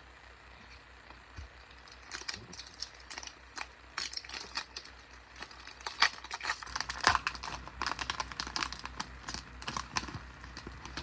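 Foil Bowman baseball-card pack wrappers crinkling in the hands, a run of many small crackles and clicks that starts about two seconds in and is busiest past the middle.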